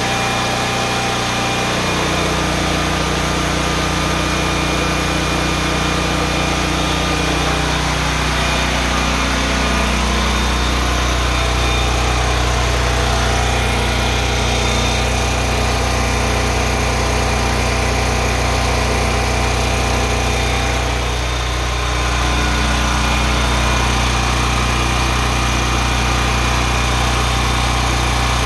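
Westinghouse WGen11500TFc tri-fuel portable generator running steadily inside a small shed. Its exhaust is carried outside through an extension pipe fitted to the muffler in place of the spark arrestor, and its tone shifts slightly a couple of times.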